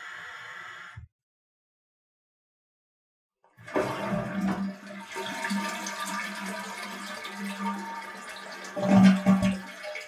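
A steady hiss cuts off about a second in. After a few seconds of silence, a toilet flush starts suddenly with a rush of water about three and a half seconds in, runs on with swirling water, and surges loudest near the end.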